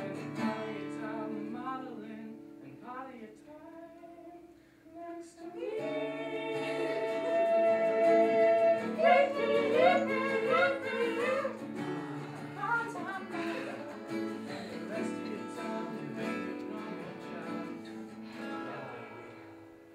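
Small group of young men singing a serenade in close harmony, held chords under a moving lead line, with guitar accompaniment. The singing drops quieter about four to five seconds in, then swells louder.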